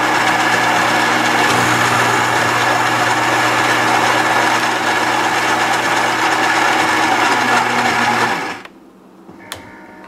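Gaggia Brera super-automatic espresso machine's built-in grinder grinding coffee beans for an espresso shot at the three-bean strength setting: a loud, steady mechanical grinding over a motor hum that cuts off suddenly about eight and a half seconds in. A much quieter hum with a few faint clicks follows.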